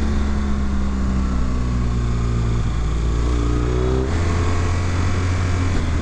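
Motorcycle engine running under way, its pitch easing down as the bike slows and then climbing again as it accelerates, with a change in its low hum about four seconds in.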